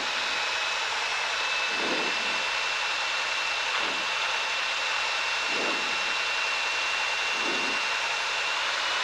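Steady rushing cabin noise of a Cessna 172 on final approach: engine and airflow over the airframe at low power, with a faint steady high whine.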